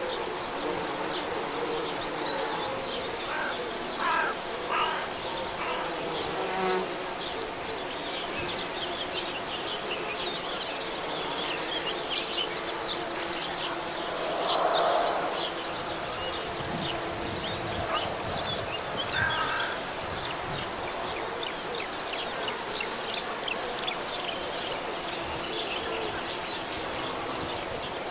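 Bumblebees and honeybees buzzing steadily while foraging on flowering phacelia, with one buzz swelling louder for about a second about halfway through. Many short high-pitched chirps sound in the background.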